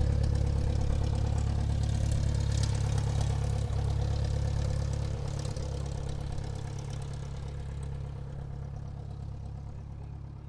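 Airplane engine running steadily as the aircraft taxis: a deep, even drone that fades away gradually over the second half.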